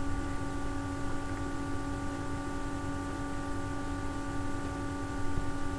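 Steady hum with several constant high tones over a faint hiss: the recording's background noise, with no distinct event.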